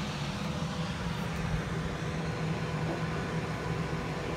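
Combine harvester running at work, a steady engine drone with a constant low hum.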